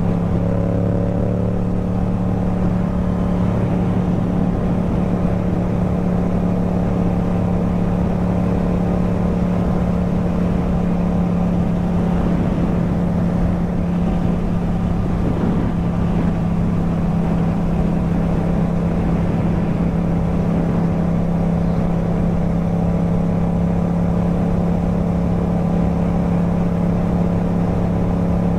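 Yamaha MT-07's parallel-twin engine breathing through an Akrapovič exhaust, pulling steadily at cruising speed on the road. The engine note holds at an almost constant pitch throughout.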